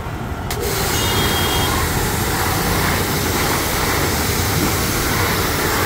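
Volts 4.5 HP, 200-bar single-phase high-pressure washer spraying: the water jet switches on sharply about half a second in and hisses loudly and steadily as it blasts over a parked scooter.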